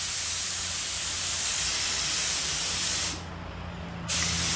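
Husky gravity-fed spray gun hissing as compressed air at 40 PSI atomises paint: a steady spray that cuts off about three seconds in, then starts again a second later.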